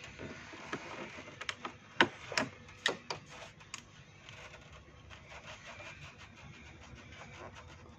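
Pliers clicking and scraping on a rubber breather hose as it is worked off the engine's rocker cover. A string of sharp clicks comes in the first half, then fainter rubbing and light ticks.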